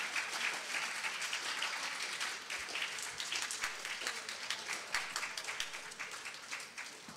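Audience applauding with many hands clapping, the applause thinning and fading away toward the end.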